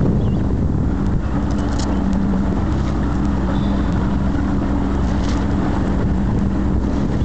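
Boat motor running steadily with a constant low hum, with wind buffeting the microphone.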